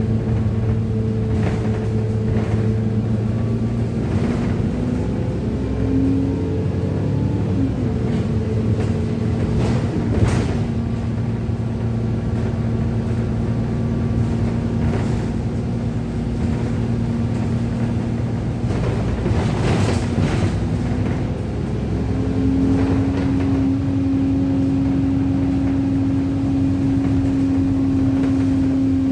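Alexander Dennis Enviro 200 bus's 6.7-litre diesel engine with Allison automatic gearbox, heard from inside the passenger cabin running steadily under way, with occasional knocks and rattles from the body. The engine note rises and falls back about six seconds in, then steps up to a higher steady pitch about 22 seconds in.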